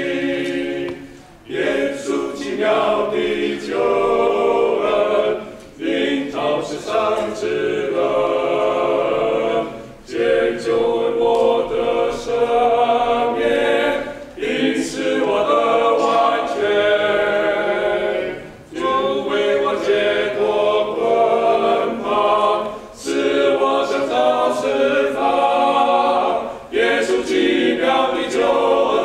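Men's vocal ensemble of five male voices singing a cappella in harmony, in phrases of about four seconds with brief breaks between them.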